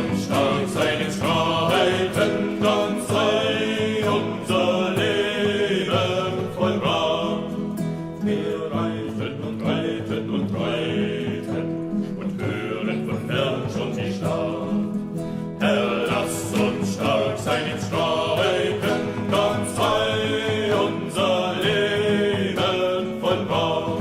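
Group of voices singing a German marching song in unison over a strummed acoustic guitar.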